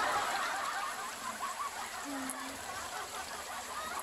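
Shallow creek water trickling and gurgling steadily, with a brief low tone about two seconds in.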